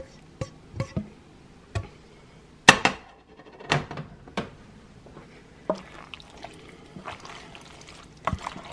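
A utensil knocks and clinks now and then against a nonstick skillet, with soft wet sounds of ground-beef tomato sauce being mixed into egg noodles. The loudest knock comes about two and a half seconds in.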